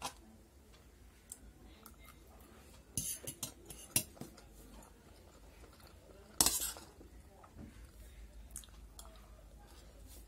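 Metal spoon and fork clinking and scraping against a steel plate of pasta, in scattered sharp taps, with the loudest clink, which rings briefly, about six and a half seconds in. Some chewing between the clinks.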